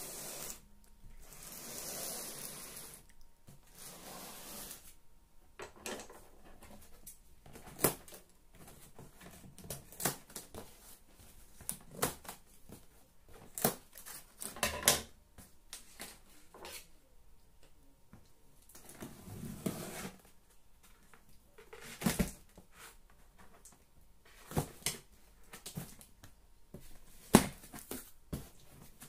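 Unpacking a cardboard shipping box: plastic strapping bands pulled off and slapping against the box, with many scattered sharp clicks, rustles and scrapes of cardboard being handled. Near the end the top flaps are cut free and lifted open.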